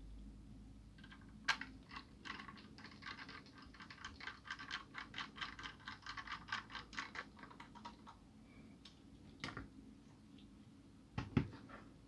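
Precision screwdriver turning a tiny screw into the end cap of a Transcend StoreJet 25S3 hard-drive enclosure: a run of quick light clicks and scratches, about four a second. Near the end a sharp click and a knock as the enclosure is set down on the table.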